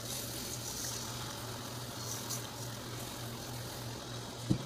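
Granulated sugar pouring from a bag onto pumpkin pieces in a pot, a faint grainy hiss over a steady low hum, with a short knock just before the end.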